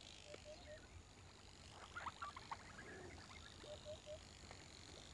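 Faint wildlife calls. Short low notes come in quick runs of three, once near the start and again near the end, with a scatter of higher chirps between them, over a faint steady high tone.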